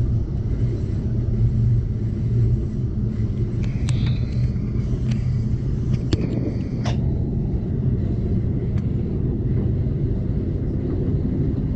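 Amtrak Cascades Talgo passenger train running along the track, heard from inside the coach as a steady, loud rumble. A few sharp clicks and short high squeals come about four to seven seconds in.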